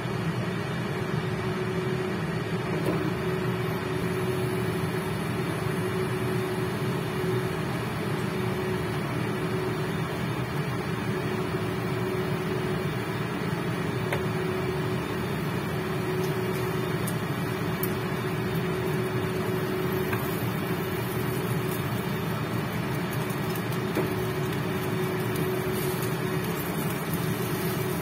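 Induction hob running with a steady electrical hum and fan noise, with oil frying in the wok under it and a few light crackles, more of them in the second half.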